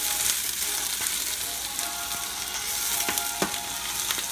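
Spinach sizzling in a hot nonstick frying pan as it is tossed and turned with metal tongs, with a couple of clicks of the tongs against the pan about three seconds in.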